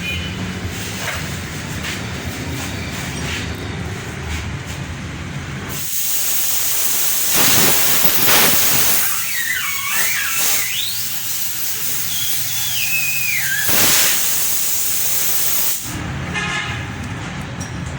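A steady low hum, then a loud hiss that starts about six seconds in and lasts about ten seconds, with a few short whistling glides in its middle, before it cuts off sharply.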